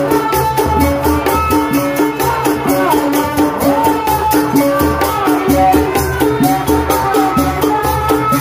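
Sundanese tanji band music for kuda renggong. A wavering melody plays over thudding drums and a fast, even beat of high shaker- or cymbal-like strokes.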